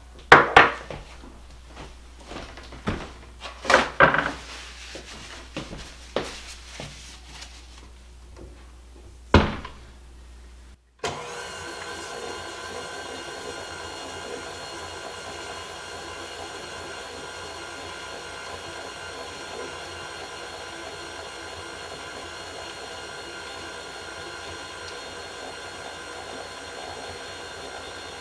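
A few sharp knocks and clinks against a steel mixing bowl, then, about eleven seconds in, a KitchenAid tilt-head stand mixer starts running at a steady speed, its flat beater creaming cream cheese, sugar and vanilla; the motor gives an even whine.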